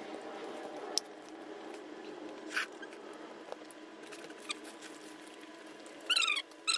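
Small dog whimpering near the end: a quick run of short, high, rising whines, over a few soft clicks of chopsticks and plastic takeout containers and a faint steady hum.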